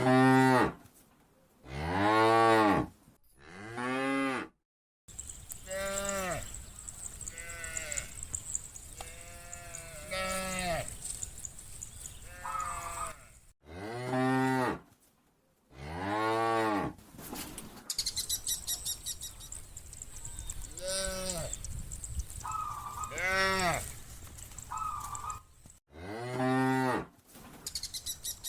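A herd of cattle mooing: a dozen or so long moos from several cows, one after another, each rising and then falling in pitch, some loud and close and others fainter.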